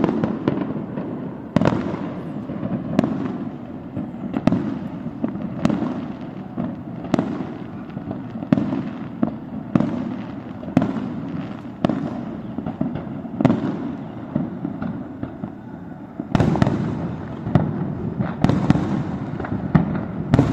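Aerial fireworks display: shells bursting in a steady run of sharp bangs, about one a second, over a continuous rumble and crackle, the bangs coming thicker from about sixteen seconds in.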